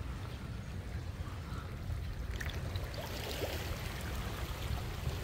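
Steady wind rumble on the microphone with water lapping at the shoreline rocks, and a few faint ticks around the middle.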